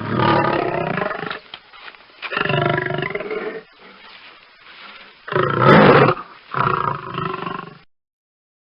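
Lion roaring: four long roars, the third the loudest, stopping about eight seconds in.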